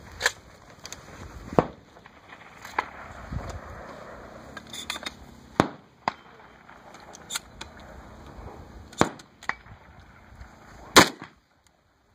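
Gunshots from a competitor firing through a multigun stage: some eight to ten single shots at irregular intervals, mostly a second or more apart, the loudest near the end.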